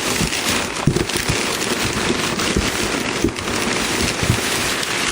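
Packing material crinkling and rustling steadily as hands dig through a shipping box, with a few soft knocks against the cardboard.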